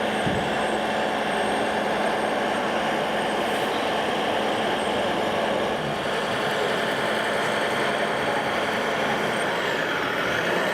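Scale RC construction models running: a steady mechanical din with a constant low hum, and a brief pitch dip and rise near the end.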